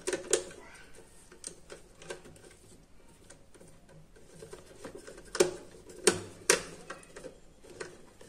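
Small scattered clicks and taps of a screwdriver working the screws of a plastic screw terminal block while a wire is fitted, with a few sharper clicks from about five to six and a half seconds in.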